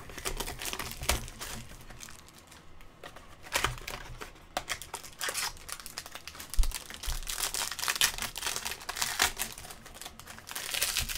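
Trading-card pack wrappers crinkling and tearing as packs are ripped open by hand, with cards being handled. A low thump about six and a half seconds in.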